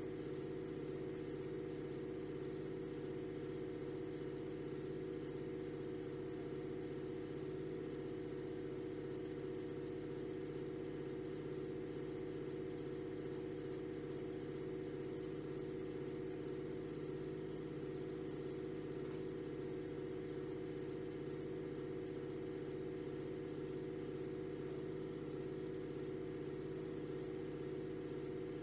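A steady low hum made of a few held tones, unchanging in level or pitch.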